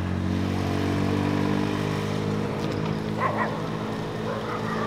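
Vehicle engine running steadily, with no revving.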